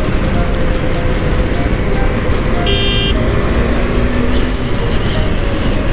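KTM Duke 250's single-cylinder engine running on the move, with dense road and wind noise; a brief horn toot sounds about three seconds in.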